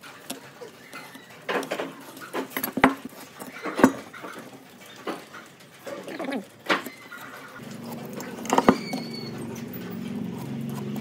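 Workshop noise: handling clatter with four sharp knocks a second or more apart. About two-thirds of the way through, a motor starts running with a steady hum.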